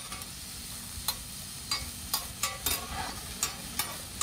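Sliced bell peppers frying on a hot teppanyaki griddle, with a faint sizzle. A chef's metal spatula and fork tap and scrape against the steel plate in a string of sharp clicks.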